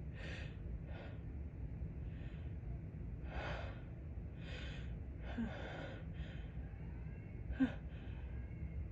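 A woman's repeated short, catching in-breaths and gasps, about nine over several seconds, as a sneeze builds but does not come. Near the end one gasp catches briefly in her voice. A steady low hum runs underneath.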